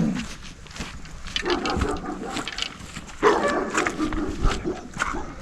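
A dog barking in two stretches, one about a second and a half in and a longer one from about three seconds in.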